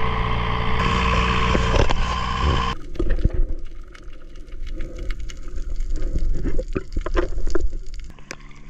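Small motorboat's engine running with water rushing and splashing at the hull. About a third of the way in it cuts off abruptly to muffled underwater sound, with scattered clicks and bubbling.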